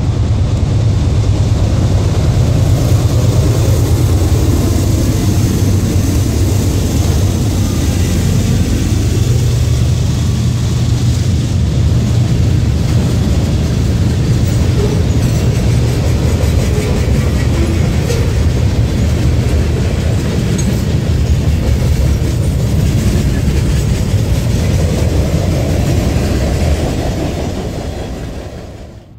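Norfolk Southern freight train passing close by: its diesel locomotives go by in the first few seconds, then a long string of freight cars rolls past with a steady rumble of wheels on rail. The sound fades out near the end.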